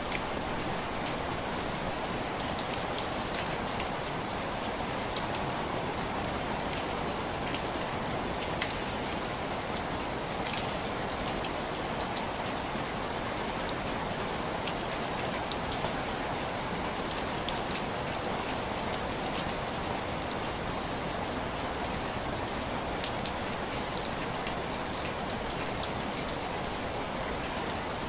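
Steady rain tapping on window glass, a constant wash of rainfall with scattered sharp individual drop ticks.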